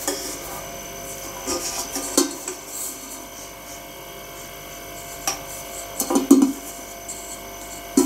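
Stainless-steel kettle being handled and turned over: hands rubbing on the metal, with a few light knocks and clicks, the loudest a little after six seconds in.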